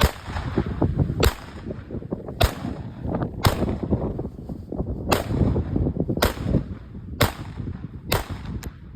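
Erma LA22 semi-automatic .22 LR pistol firing a string of about eight single shots, roughly one a second, each a sharp crack. It cycles on every shot without a stoppage, working reliably with the new round-nose ammunition.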